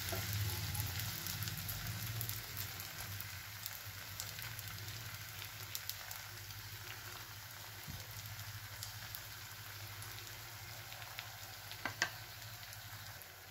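Thin paratha batter sizzling faintly in hot oil in a nonstick frying pan on a low flame as a ladle spreads it; the sizzle slowly dies down.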